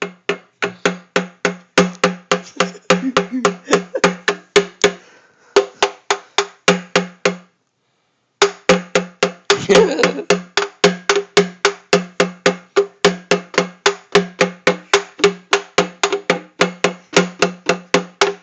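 A drum beaten in quick, even strokes, about four or five a second, each stroke a short pitched thud. The drumming stops for about a second a little before the middle, then starts again.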